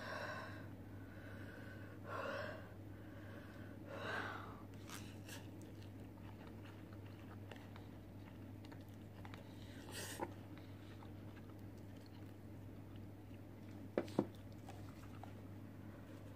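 Close-up eating sounds of spicy instant ramen: three breathy slurps of noodles in the first few seconds, then quiet chewing with small mouth clicks, and two sharp taps about two seconds before the end.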